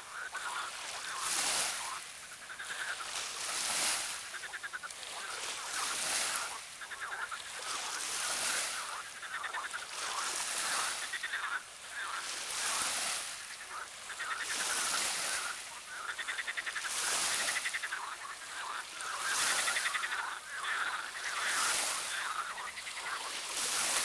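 A chorus of frogs croaking continuously, with a rushing hiss that swells about every two seconds.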